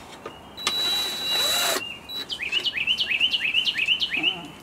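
A bird singing a fast run of short rising chirps, about five a second, through the second half. Before it, about half a second in, comes a hissing burst with a steady high whine lasting about a second.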